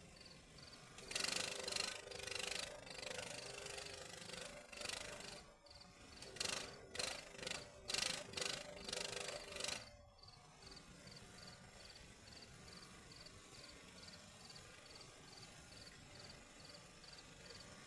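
Arc welding on rebar in several short bursts of crackling, each lasting one to two seconds, with a low hum under them. After the last burst, about ten seconds in, only a quieter steady noise with a faint high ticking remains.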